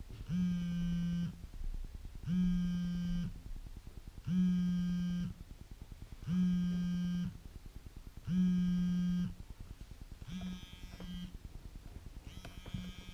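Smartphone alarm going off: a buzzy tone repeated five times, each about a second long and two seconds apart. It then sounds twice more, shorter and fainter, with some handling noise as the phone is picked up to switch it off.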